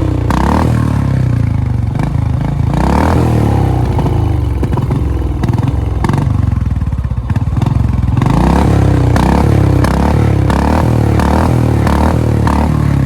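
Royal Enfield Bullet single-cylinder motorcycle engine revving under way, with sharp exhaust pops from deliberate misfiring, several in quick succession in the last few seconds.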